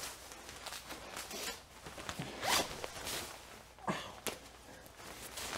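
Zipper of a hooded rain jacket being worked by hand: several short zipping strokes with fabric rustle between them, the loudest about halfway through.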